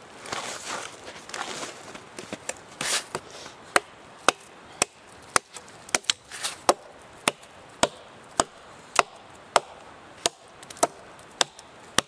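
Hatchet chopping into a log for firewood: after a few seconds of rustling and scattered knocks, sharp wood-splitting strikes at a steady pace of about two a second.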